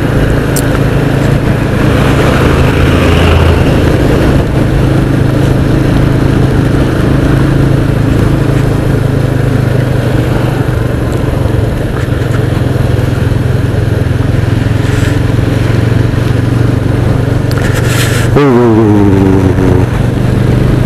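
Motorcycle riding on a rain-wet road: the engine runs with a steady drone under constant wind and road noise. Near the end a pitched sound sweeps down and then holds briefly.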